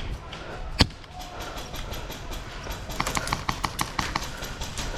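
Airsoft gunfire: a single sharp crack about a second in, then a rapid burst of about eight shots at roughly seven a second, a few seconds later.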